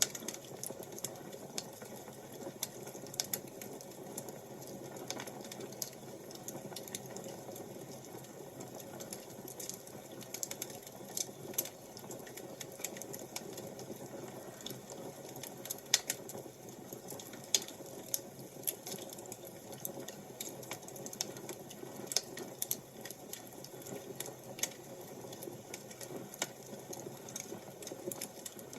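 Wood fire crackling: irregular sharp pops and snaps over a steady soft rush.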